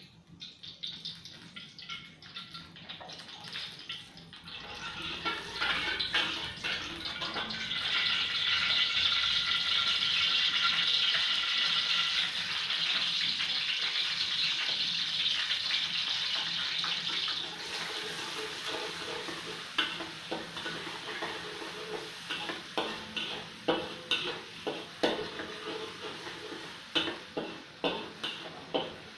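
Chopped garlic sizzling in hot oil in a stainless steel wok, the sizzle building over the first few seconds and loudest in the middle. In the second half the sizzle eases and a metal spatula scrapes and knocks against the wok in repeated short strokes as the garlic is stirred.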